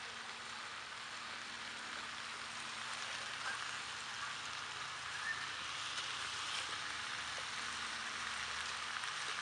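Potatoes and carrots sizzling steadily in olive oil in a hot cast-iron skillet on a charcoal grill, with faint scrapes as they are stirred.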